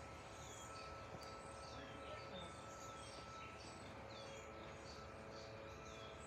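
Small birds chirping, short falling chirps about three a second, over a faint low steady rumble.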